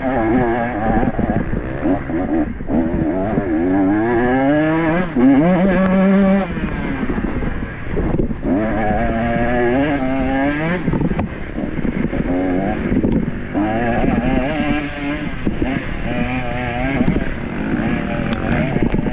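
Dirt bike engine under race load, revving up and down over and over: its pitch climbs in several sweeps and drops off between them.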